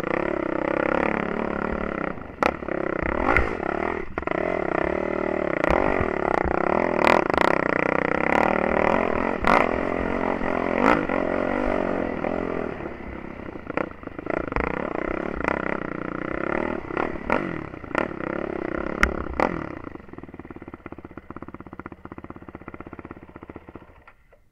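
Yamaha YFZ450 ATV's single-cylinder four-stroke engine revving up and down under load over rough ground, with many sharp knocks and clatter from the machine. About twenty seconds in, the engine drops to a quieter, lower-revving run.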